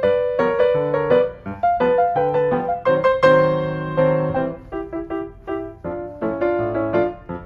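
Background piano music: a melody over chords, with notes struck and left to ring.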